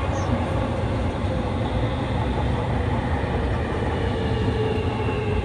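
Fukuoka City Subway train running, heard from inside the car: a steady low rumble of wheels and running noise, with a thin whining tone setting in about four seconds in.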